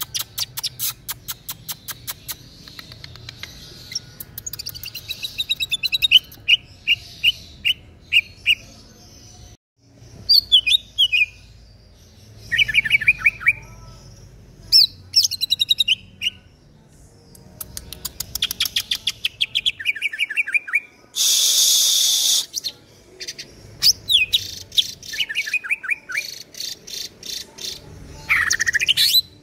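Caged male green leafbird (cucak ijo) singing continuously: rapid ticking rattles and repeated runs of quick, falling whistled notes. About two-thirds of the way in there is a loud, harsh hissing burst lasting over a second.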